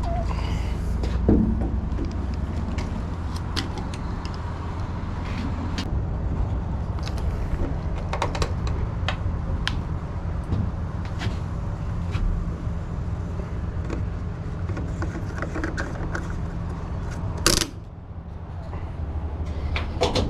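Steady low mechanical hum while diesel is pumped at a fuel dispenser, with scattered small clicks and knocks. A sharp clack near the end, after which the hum drops away.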